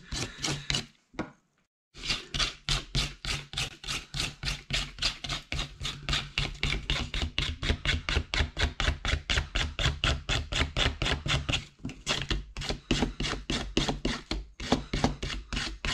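A Mora knife blade scraping the outer bark off a sheet of birch bark in rapid, evenly repeated strokes, with a brief break about a second in.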